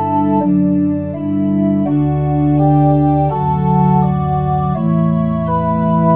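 Synthesised pipe organ on a Montre 8' and Gedackt 4' registration playing a slow, chordal partita theme in several voices: sustained chords change every half second to a second. A low bass note comes in about two seconds in.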